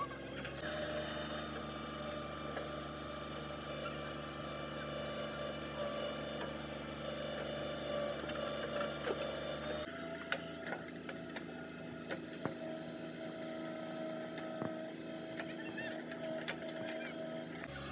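Tractor diesel engine running steadily while driving a tractor-mounted hydraulic backhoe that digs earth and dumps it into a trailer. The engine note shifts abruptly about halfway through, and scattered sharp knocks follow in the later part.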